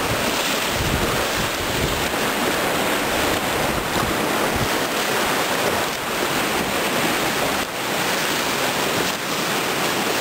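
Whitewater rapids rushing and churning steadily around a raft, with wind buffeting the microphone in low rumbles about a second in and again near the middle.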